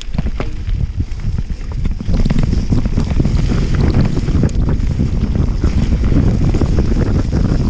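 Wind buffeting the microphone of a camera on a mountain bike riding fast downhill, with the tyres and bike knocking over the dirt trail; the noise grows louder about two seconds in as the bike picks up speed.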